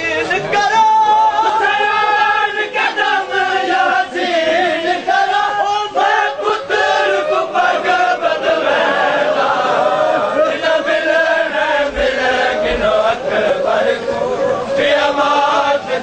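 A crowd of male mourners chanting a Punjabi noha (Shia lament) together, many voices rising and falling in one loud continuous chant, with sharp slaps of hands beating on chests (matam) mixed in.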